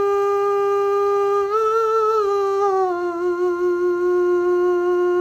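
A single voice humming a melody unaccompanied: a long held note, a slightly higher note about one and a half seconds in, then a lower note held steadily.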